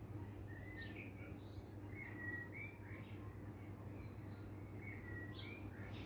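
Small songbirds chirping and twittering in short, high, slightly gliding notes, several a second, over a steady low background hum.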